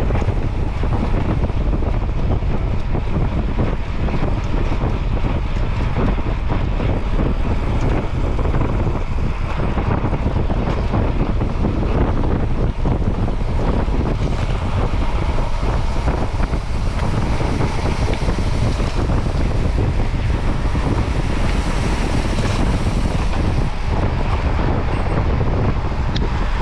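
Steady wind buffeting the microphone while travelling along a road, a loud, even rush that is heaviest in the bass.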